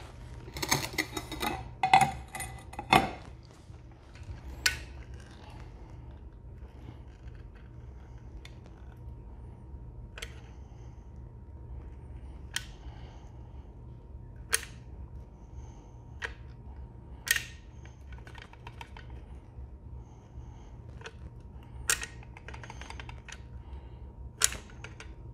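Hand caulking gun clicking as its trigger is squeezed to push construction adhesive onto the back of a ceramic tile: a quick run of clicks and knocks in the first three seconds, then single clicks every couple of seconds, over a low steady hum.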